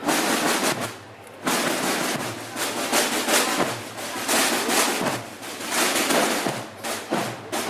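Marching snare drums of a bugle-and-drum band beating a processional cadence of rapid rattling rolls, with a short break about a second in.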